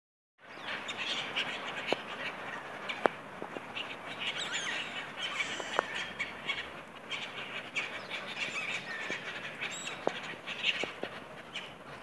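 A flock of black-headed gulls calling, with many short cries overlapping in a busy chatter. A few sharp clicks cut through, the loudest about three seconds in.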